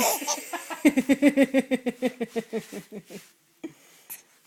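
A baby laughing in a rapid string of short pulses, about five a second, that drop slightly in pitch and fade out.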